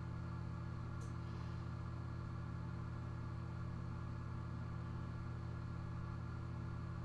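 A steady low hum that does not change, with a faint click about a second in.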